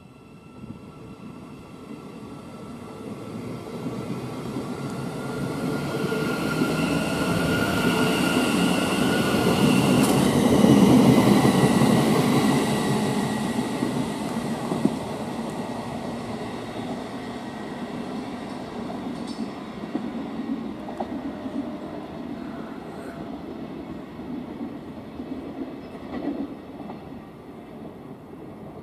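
Thameslink Class 700 Desiro City electric multiple units moving through the platform: a rumble of wheels on rail with a thin electric whine from the traction motors that rises slightly in pitch. The sound swells to its loudest about ten seconds in, then eases off.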